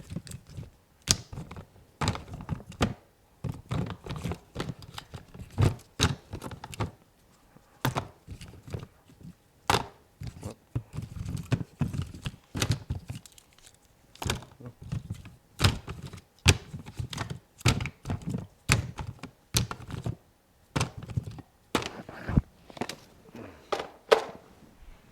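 Irregular light clicks, taps and knocks of small tools and phone parts being handled on a repair bench, one or two a second.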